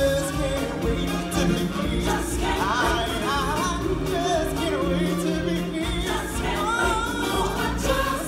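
Live stage-show music: a lead singer on a microphone with backing voices over recorded backing music, heard from the audience.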